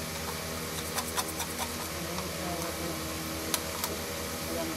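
A steady low machine-like hum with a fast, even pulse, with a few sharp clicks and taps over it, about a second in and twice more later.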